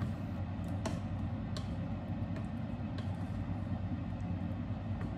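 A wooden spatula stirring a thick stew in a metal pot, with a few light knocks of the spatula on the pot, over a steady low hum.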